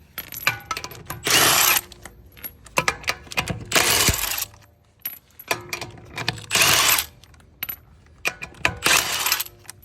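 A power tool spinning the lug nuts off a truck wheel in four short bursts of about half a second each. Small metal clicks and clinks come between the bursts as each nut comes free and is handled.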